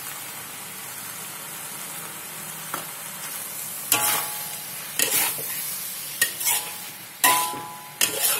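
Minced chicken and onions sizzling steadily in a wok with a little added water. From about four seconds in, a metal spatula stirs and scrapes against the wok in about eight quick strokes, several with a brief metallic ring.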